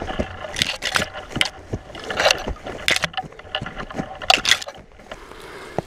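Footsteps crunching through dry weeds and brush, with clothing and gear rustling and scraping in irregular bursts. The sound dies down near the end.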